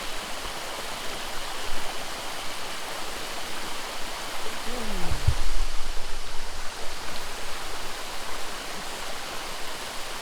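Mountain stream rushing steadily over rocks. About halfway through, a short sound falls in pitch.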